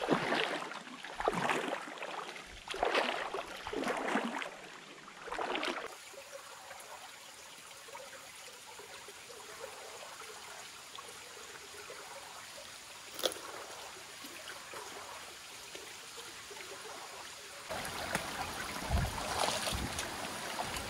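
Feet wading and splashing through a shallow, rocky creek, several sloshing steps in a row, then the steady trickle of creek water running over rocks. A single sharp click comes about halfway through, and the sound grows louder with a low rumble near the end.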